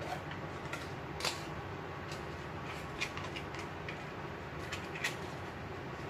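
Steady hum of an electric fan, with a few light taps and knocks as small cardboard boxes are handled and set down on a table. The clearest taps come about a second in, at three seconds and at five seconds.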